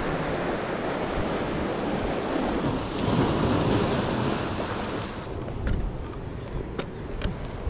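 Sea waves washing at the shore, with wind buffeting the microphone; the surf swells about three seconds in, and a few faint clicks come near the end.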